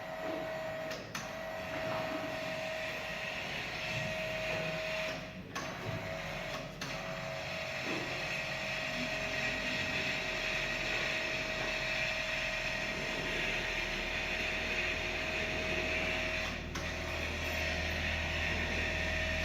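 Donau DR32 radial drilling machine running, its spindle drive giving a steady whine over a hiss. The sound breaks off briefly a few times, and a low hum comes in near the end.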